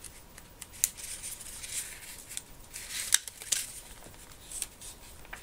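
Paper rustling and crackling as the thick pages and an envelope of a handmade junk journal are handled, with a couple of sharp clicks.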